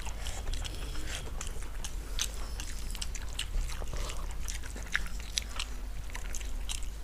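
Two people chewing mouthfuls of rice and curry eaten by hand, close to the microphone, with many short wet mouth clicks and smacks.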